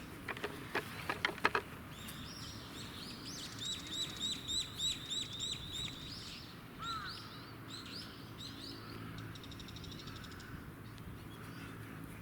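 Wild birds singing in an open field: one bird repeats the same short note about a dozen times at roughly three a second, then other calls and a brief fast trill follow. A few sharp clicks and rattles come in the first second and a half.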